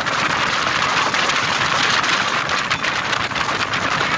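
Motorboat running at speed: a steady engine drone under the loud rush of its churning wake.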